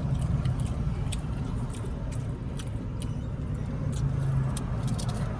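Steady low hum of an idling car heard from inside the cabin, with scattered small clicks and smacks of eating.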